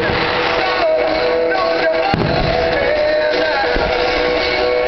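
Music with a held, wavering melody plays at a steady level, and a firework shell bursts with a dull boom about two seconds in.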